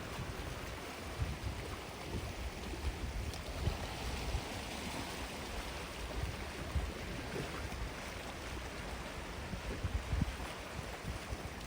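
Gentle sea waves washing onto a sandy beach, a steady hiss that swells and eases, with an uneven low rumble of wind on the microphone.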